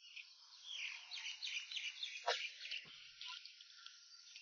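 Faint outdoor ambience of quick, high chirping from small creatures such as birds or insects, with two soft knocks a little past two and three seconds in.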